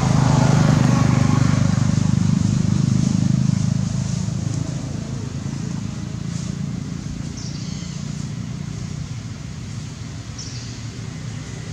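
A motor engine running with a low, steady drone, loudest over the first four seconds and then fading to a quieter hum.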